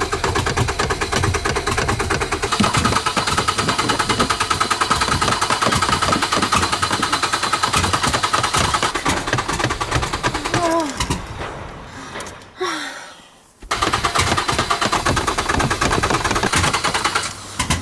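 Nissan Primera's starter motor cranking the engine in a long run of fast, even pulses without it catching: the car cranks but won't start. The cranking breaks off briefly about twelve seconds in, then starts again.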